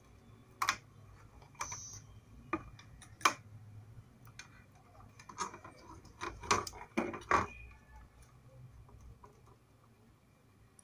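Handling noise: a series of sharp clicks and knocks as an induction cooker's circuit board, with its aluminium heatsink, is lifted and turned over on the bench. The clicks come most thickly about five to seven and a half seconds in.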